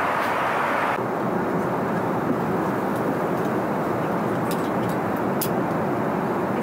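Steady cabin noise of an Airbus A380 airliner in flight: the even rush of airflow and engines. About a second in it turns duller. A few faint clicks come later on.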